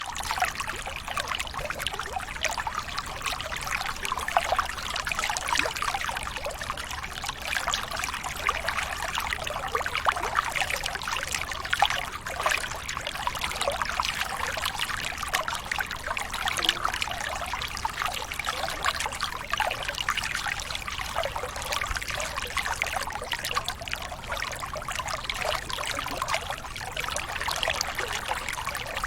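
Running water trickling and splashing steadily, a dense patter of small splashes.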